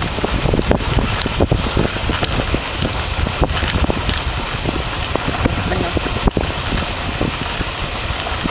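Dog sled moving over snow: a steady hiss of the runners with frequent small knocks and rattles, and wind rushing over the microphone.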